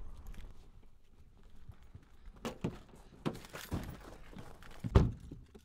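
Scuffling movement: a series of irregular knocks and rustles, ending in one heavy thump about five seconds in.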